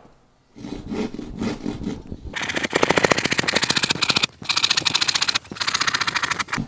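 Hand saw cutting through a thin plywood panel with fast back-and-forth strokes, the teeth rasping. The strokes are slower at first, then become quick and steady, with two brief pauses.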